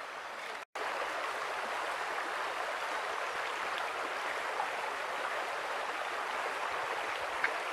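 Steady outdoor background hiss with no distinct events, broken by a brief silent gap under a second in at an edit in the audio.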